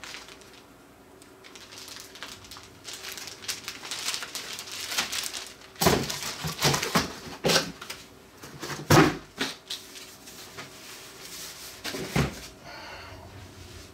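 Cardboard box and packing material being handled during unpacking: irregular rustling and crinkling with a few sharp knocks, the loudest about nine seconds in.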